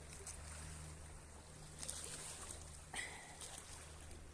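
A steady low mechanical hum, with brief scuffs about two and three seconds in.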